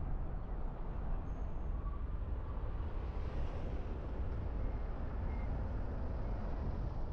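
A car driving, heard from inside the car: a steady low rumble of engine and road noise, with a brief rise in hiss about three seconds in.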